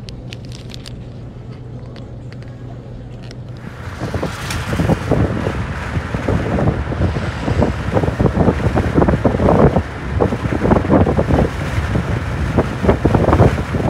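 Wind buffeting the microphone through an open car window while driving, starting abruptly about four seconds in and gusting loudly. Before it, a steady low hum with a few light clicks.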